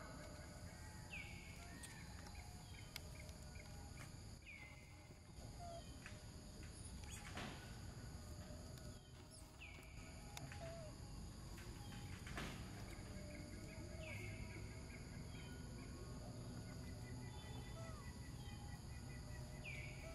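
Faint outdoor ambience: a steady high insect drone with a bird repeating a short falling call every few seconds, over a low rumble. Two brief rustling rushes come about a third and about three-fifths of the way in.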